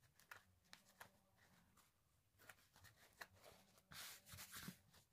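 Near silence with faint rustling of cloth as hands handle and smooth a saree and its stitched fall: a few soft brushes and taps, most of them near the end.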